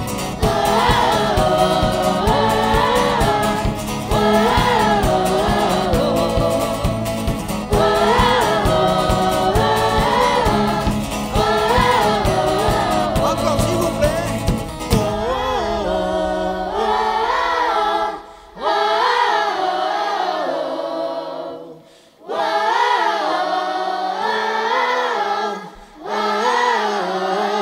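Children's choir singing a song together with adult voices, backed by instruments including acoustic guitar. About halfway through, the low accompaniment drops away and the voices carry on almost alone, with three short breaks between phrases.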